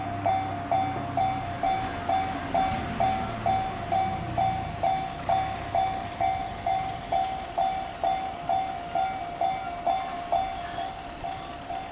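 JR-standard electronic level-crossing warning bell ringing steadily, about two strokes a second. A passing train's low rumble underneath fades out about five seconds in.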